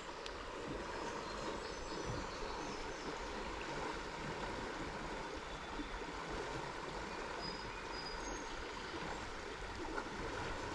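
Steady rushing of flowing river water, with a few faint, short high tones.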